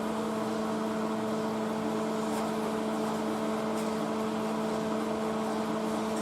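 Steady machine hum, holding one pitch with overtones, with a couple of faint ticks.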